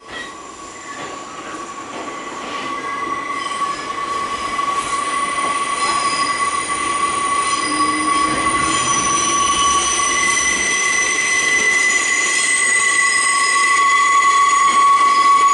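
New York City Subway R train moving along the platform, its steel wheels squealing on the rails with a steady high-pitched whine that grows louder throughout.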